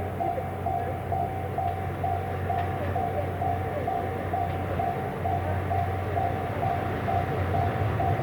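Japanese level-crossing warning bell ringing in a steady electronic clang about twice a second, over the steady low drone and rumble of the Series 87 diesel train passing slowly.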